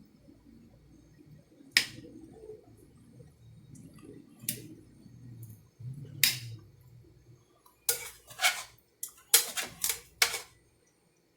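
Utensils and dishes clinking and knocking as food is served onto a plate: a few separate clinks with soft handling noise between, then a quick run of about seven clinks near the end.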